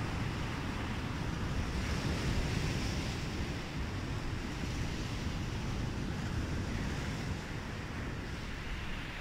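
Wind buffeting the microphone over the steady wash of surf on a sandy beach.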